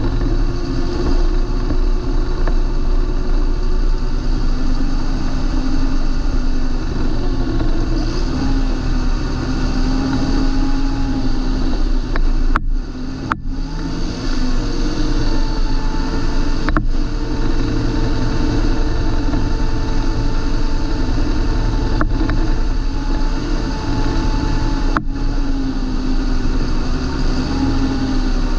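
John Deere 8320 tractor's six-cylinder diesel engine running steadily under way, its pitch wavering slightly up and down, with a few brief clicks about halfway through and later on.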